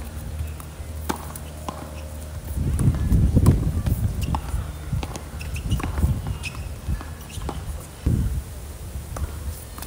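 Singles tennis rally on a hard court: sharp racket-on-ball hits and shoe steps every second or so. A loud low rumble comes in about two and a half seconds in and dies away near the end.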